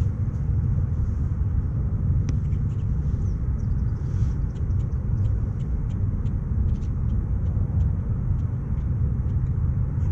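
Steady low outdoor rumble with no speech, with faint light ticks scattered through it.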